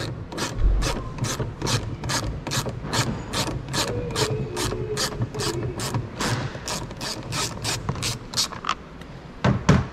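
Small socket ratchet clicking steadily, about three to four clicks a second, as it undoes a 10 mm bolt holding a door trim panel. The clicking stops shortly before a couple of louder knocks near the end.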